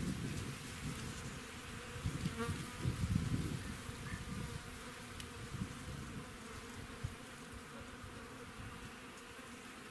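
Steady insect buzzing, with some low rumble in the first few seconds.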